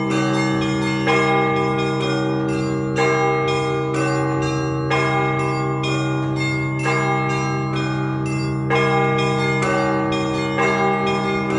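Russian Orthodox church bells rung together as the peal calling people to the service. Deep bells hum on without a break under quick repeated strokes of small bells, and a louder bell is struck about once a second.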